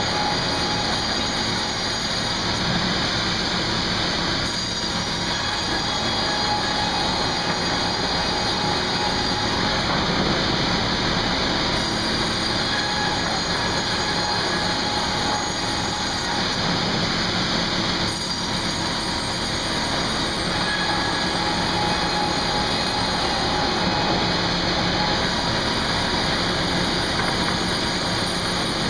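Sawmill machinery running steadily: a continuous loud mechanical drone of the log-handling and sawing line.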